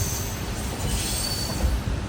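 Passenger train hauled by a WDP-4D diesel locomotive running by, a steady heavy rumble with brief high squealing tones from the wheels on the rails.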